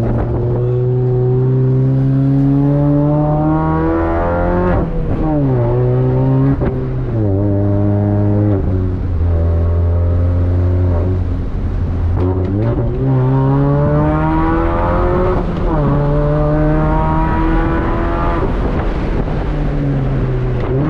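Car engine accelerating through the gears: its pitch climbs steadily, then drops back sharply at each shift, several times over, under a steady low rumble.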